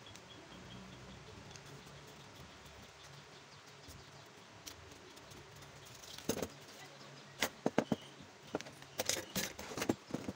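Faint background for the first few seconds, then, from about six seconds in, a run of sharp irregular clicks, rustles and knocks as the paper sole pattern and materials are handled and moved about on the workbench.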